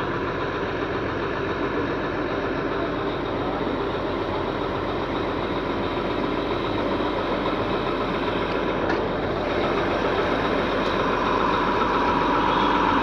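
Diesel engine of a Plasser Duomatic 08-32C track tamping machine running steadily, with a whine that grows stronger near the end as the overall sound slowly gets louder.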